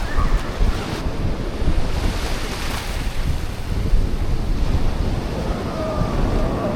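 Wind buffeting the microphone over the wash of sea waves on a beach, with a surge of surf about two to three seconds in.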